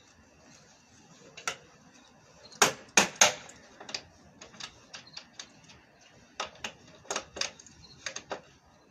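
Sharp knocks and clacks of wooden table parts being handled and fitted together: three loud knocks in quick succession about three seconds in, then lighter clicks and a further run of knocks near the end.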